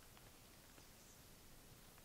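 Near silence: faint steady background hiss, with a couple of very faint soft ticks.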